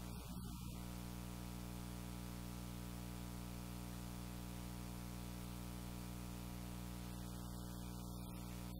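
Steady electrical mains hum with its stack of overtones over a layer of hiss.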